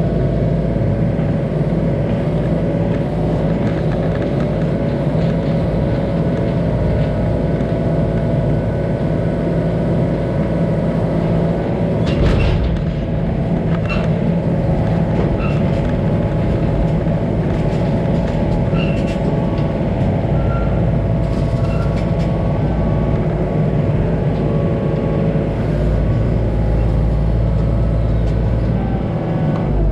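Heavy diesel engine running steadily under constant throttle, with a couple of sharp knocks about twelve and fourteen seconds in.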